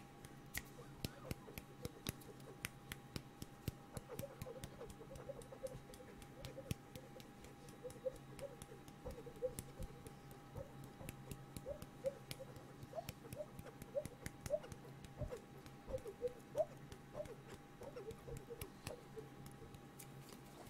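ASMR mouth sounds close to a condenser microphone: a rapid, irregular run of tongue clicks and small pitched lip pops, made to imitate nature sounds.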